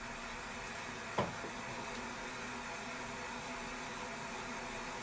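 A steady hiss, with one light knock about a second in.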